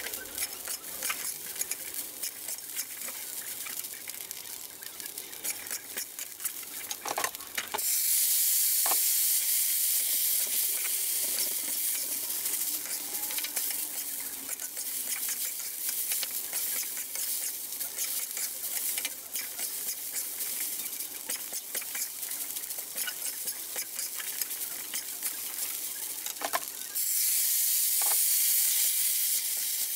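Glutinous rice and Chinese sausage sizzling in a carbon-steel wok, with a metal spatula scraping and tossing the rice against the pan. The sizzle turns suddenly louder and hissier about eight seconds in, fades slowly, then jumps up again near the end.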